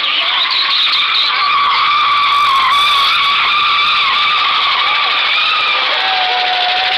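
Dodge Charger's rear tyres squealing as it spins donuts: a steady, loud, wavering squeal.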